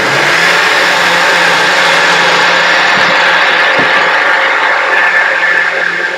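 Small personal blender's motor switching on and running steadily at full speed with a loud, even whir, blending fruit, pak choi, seeds and almond milk into a smoothie.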